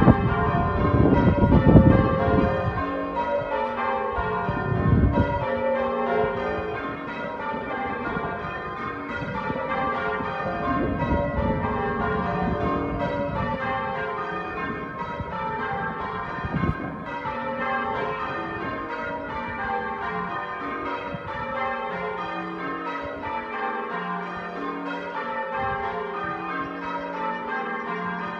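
Church bells ringing from the stone tower, a steady, unbroken run of overlapping strokes at different pitches in the manner of change ringing. A low rumble on the microphone sits under the bells for the first few seconds.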